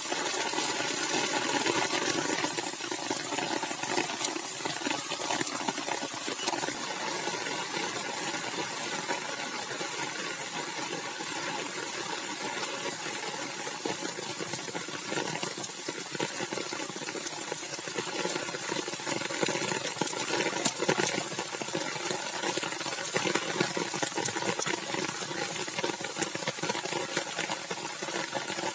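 Heavy rain pouring down onto pavement and standing water, a steady hiss dense with fine drop splashes. A faint steady hum sits underneath.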